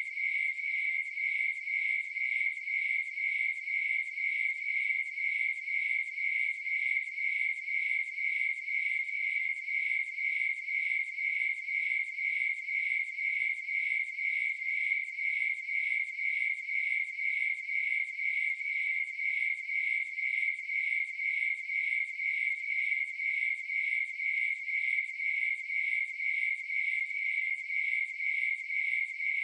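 Crickets chirping in a steady, even rhythm of about two high-pitched chirps a second.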